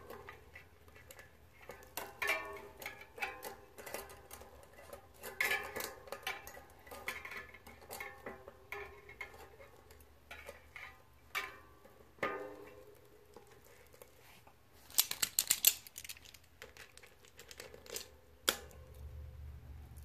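Loose length of bicycle chain clinking and rattling against the steel cogs of a mountain bike's rear cassette as it is wrapped around them for use as a makeshift chain whip. Scattered metallic clicks throughout, with a quick run of sharp clicks about fifteen seconds in.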